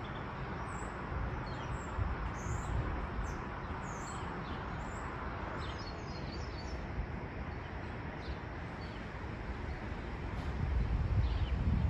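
Outdoor ambience: a steady background noise with scattered short, high bird chirps, and a low rumble of wind on the microphone swelling near the end.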